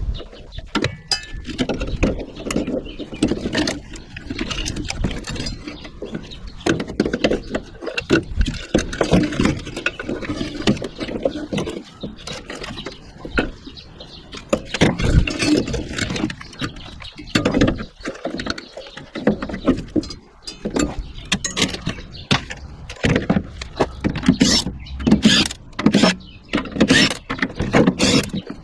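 Irregular metal clanking, knocking and scraping as HVAC scrap is pulled apart by hand, with the knocks coming thicker and louder near the end.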